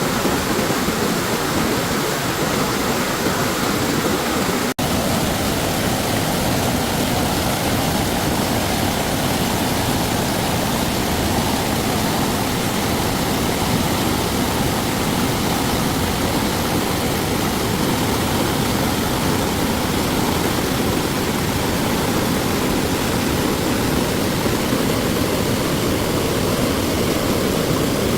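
Stream water rushing steadily, with a momentary break about five seconds in.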